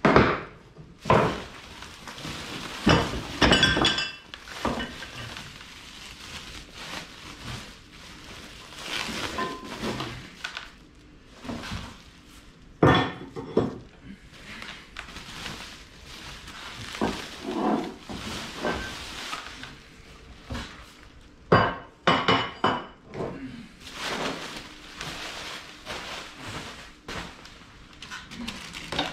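Metal parts of a belt grinder being unpacked and handled: irregular clinks and knocks of metal against metal and against a hard surface, with softer scuffing between.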